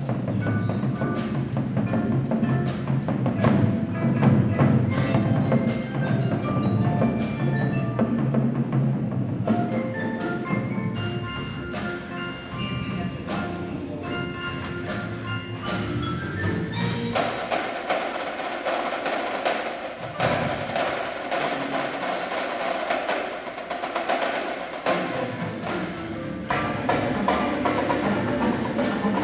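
Indoor percussion ensemble performing: marimbas and other mallet keyboards play melodic lines over drum and percussion hits.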